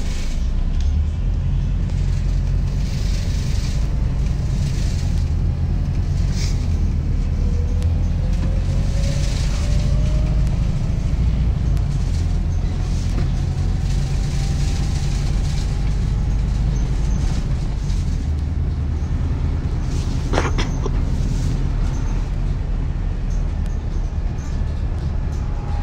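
Inside a moving Volvo B5TL double-decker bus: a steady low diesel engine drone, with a drivetrain whine that rises slowly as the bus picks up speed. Light rattles and clicks from the bodywork, and one sharp knock about twenty seconds in.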